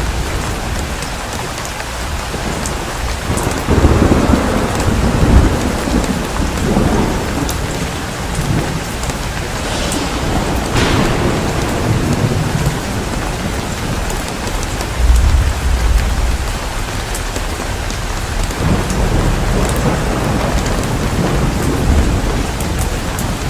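Thunderstorm: heavy rain falls steadily and thunder rumbles. The rumbles are loudest a few seconds in and again about two-thirds of the way through.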